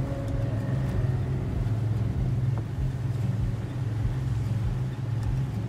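Steady low rumble of a sailing catamaran motoring under way, its sails not yet up.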